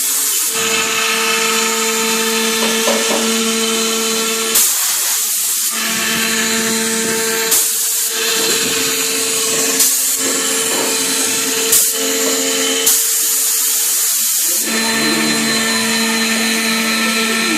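Large CNC router cutting an MDF board: the spindle runs with a steady whine that drops in pitch near the end, broken by several short bursts of hissing cutting noise.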